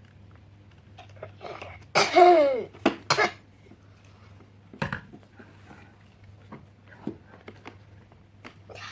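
A person coughing: a loud voiced cough falling in pitch about two seconds in, followed by two short coughs, over a steady low hum and faint scattered clicks.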